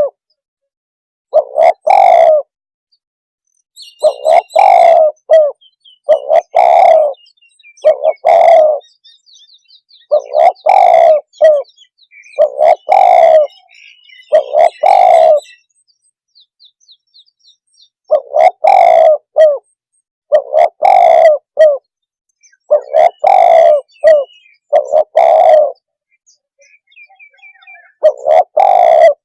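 Spotted dove (tekukur) cooing: low coo phrases about a second long, repeated roughly every two seconds with a few longer pauses. A small bird chirps faintly in the background during the first half.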